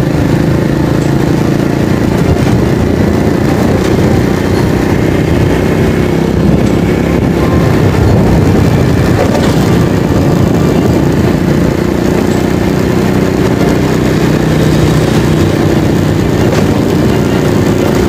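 Motorcycle engine running steadily as the bike is ridden along at an even speed.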